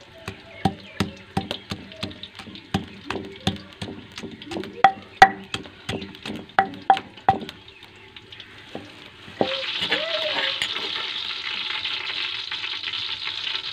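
Wooden pestle pounding chopped garlic in a stone mortar: a run of sharp knocks, about two or three a second, that stops after about seven seconds. From about nine seconds in, a steady sizzling hiss of frying oil takes over.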